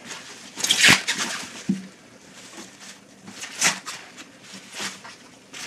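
Thin plastic bag rustling and crinkling in several short bursts as it is worked off a guitar.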